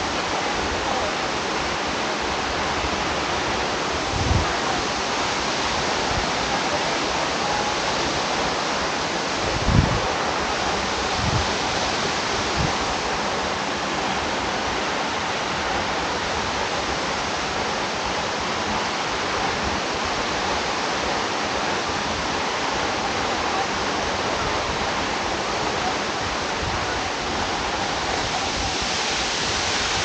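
Steady rush of Jeongbang Waterfall's water pouring down, an even roar with no break. A few brief low thumps stand out, the loudest about ten seconds in.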